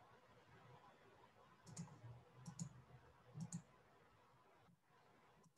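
Faint computer mouse clicks: three pairs of quick clicks about a second apart, then near silence.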